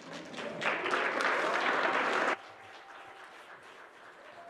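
Congregation applauding briefly: the clapping swells up within the first second and stops abruptly a little over two seconds in, leaving a quieter room murmur.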